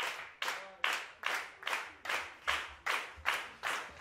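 Concert audience clapping together in a steady rhythm, about three claps a second: the rhythmic applause that calls for an encore (bis).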